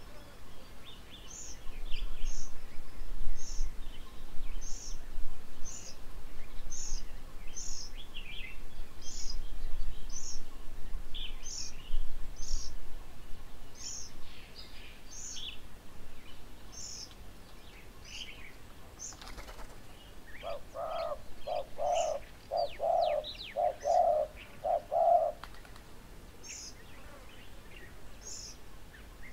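Birds calling at a feeding table: a short, high note repeats every half second or so throughout, with scattered chirps. From about 20 seconds in comes a run of about seven lower, evenly spaced hooting notes.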